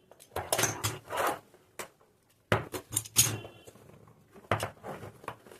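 Handling noise of a keyboard being unboxed: packaging rustling, with knocks and clicks, in three short bursts.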